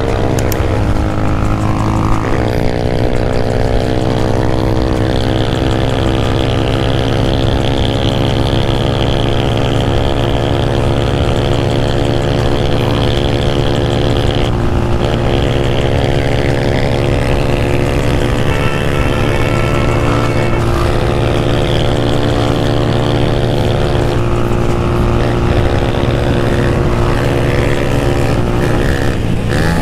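Motorcycle engine running steadily at road speed, heard from the rider's own bike with wind noise on the microphone. The engine note shifts slightly a couple of times, about two seconds in and around fifteen seconds.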